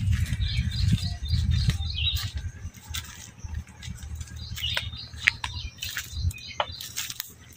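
Tractor diesel engine running with a steady low drone that cuts off about six seconds in, while birds chirp.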